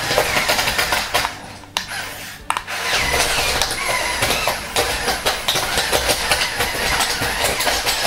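Brick-built remote-controlled bulldozer's electric L-motors whining under strain while its tracks clatter and click over loose plastic bricks, with a brief lull about a second and a half in. The motors are labouring and short of power for climbing the brick pile.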